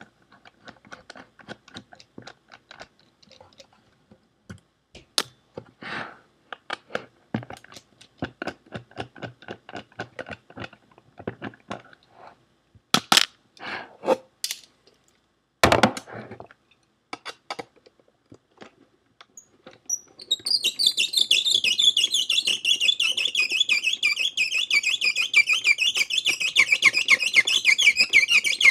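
Scattered clicks and knocks from handling a Seagate ST410800N hard drive's metal casing. About two-thirds of the way in, a fast, continuous, high rattling buzz starts as a screwdriver works a screw on the drive's top cover.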